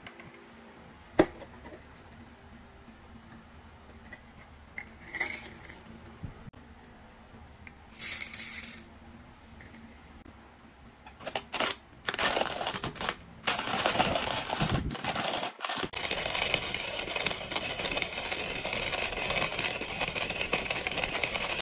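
A sharp click about a second in, then coffee beans rattling into the metal hopper of a hand-crank coffee mill in short bursts. From about twelve seconds in, steady dense crunching as the crank is turned and the mill grinds the beans.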